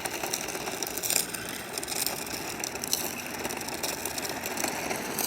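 Electric RC car's motor and gears whirring as it is driven, with a few short clicks and rattles.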